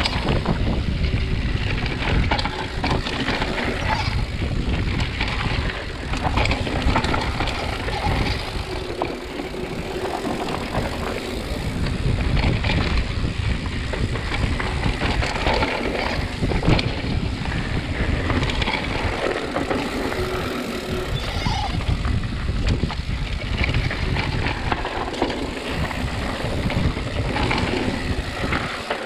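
Mountain bike riding down a rough gravel and rock trail: tyres crunching over loose stones, with constant rattling of the chain and frame over the bumps and a low rumble throughout.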